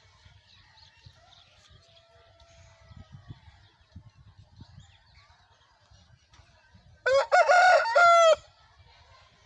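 Aseel rooster crowing once, a loud crow of just over a second that starts about seven seconds in and breaks briefly just before its final note. Before it there is only faint background noise.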